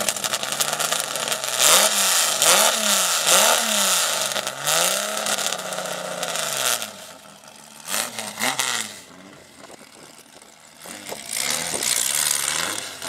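Sand buggy's Ford engine revving hard in repeated bursts under load, the pitch climbing and falling several times as the tyres dig into a steep sand dune. It eases off about seven seconds in, revs once more, then drops away.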